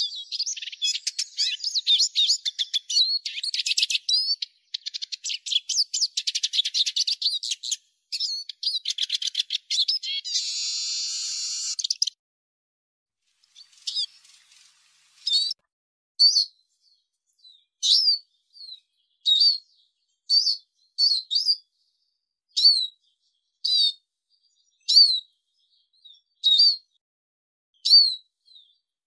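Eurasian siskin singing: a fast, dense twittering song that ends in a drawn-out buzzy wheeze. After a short pause it gives a run of single high, downward-sliding calls, about one a second.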